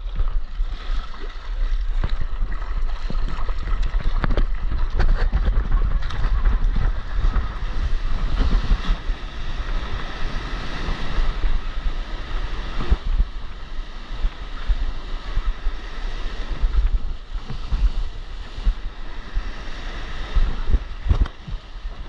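Wind buffeting the microphone over the rush and splash of breaking whitewater around a surfboard riding a wave into the shore.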